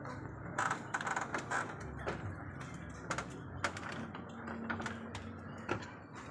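Pigeons shifting about on the loft's wooden perches and nest boxes, making irregular light taps and clicks over a low steady hum, with a quick flurry of clicks in the first couple of seconds.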